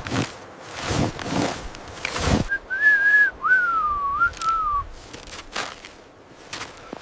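A person whistling a short wavering tune of a few phrases, lasting about two seconds, starting a little over two seconds in. Before it come several crunching steps or knocks.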